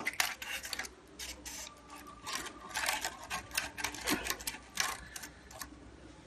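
Honeycomb cooling pad being pressed by hand into an air cooler's plastic frame: a run of irregular crackles and clicks that stops near the end.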